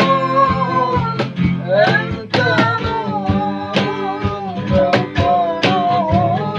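A sholawat, an Islamic devotional song in Arabic, sung with long, wavering held notes over a plucked-string accompaniment with a steady beat.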